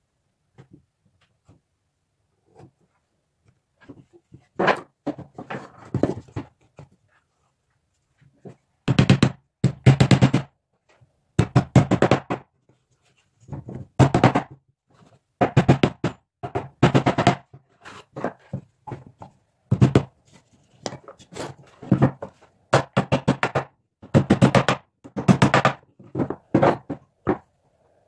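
A hand tool worked back and forth on wood in repeated strokes, about one every one and a half seconds, each stroke a short scraping burst.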